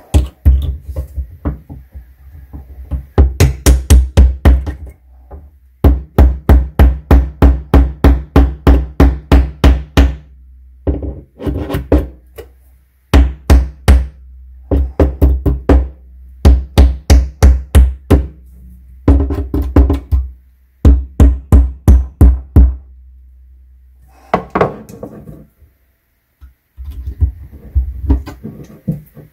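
A claw hammer strikes tongue-and-groove pliers held against a particleboard shelf-support strip inside a wooden kitchen cabinet, knocking the strip off the wall. The blows come in quick runs of about four a second, with short pauses between the runs.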